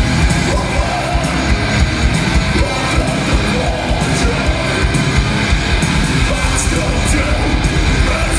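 Thrash metal band playing live: distorted electric guitars and fast drums, with shouted vocals over them.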